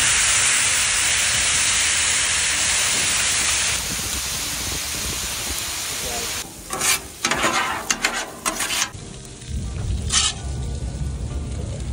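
Sauced tri-tip burnt ends sizzling loudly on a hot flat-top griddle, the sizzle easing after about four seconds. In the second half come a series of short, sharp noises over a low rumble.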